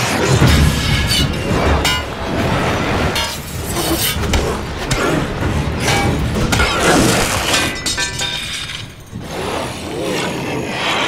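Film soundtrack of loud music layered with a dense, irregular series of crashing impact sound effects.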